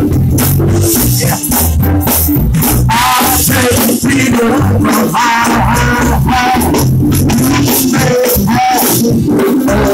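Loud live gospel music: a man singing into a microphone over heavy bass, drums and percussion.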